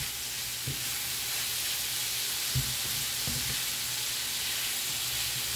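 Sliced smoked turkey sausage sizzling steadily in a skillet, stirred with a spatula that knocks against the pan a few times. The cook takes the sizzling as the liquid cooking out of the sausage as it chars.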